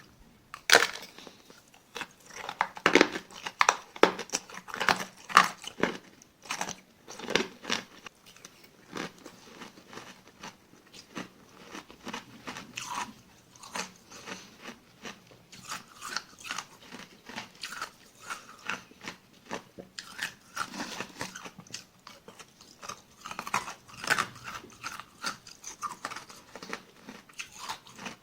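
Small granular ice pieces being bitten and chewed close to the mouth. Dense, sharp crunches are loudest in roughly the first eight seconds, then settle into lighter, steady chewing crunches.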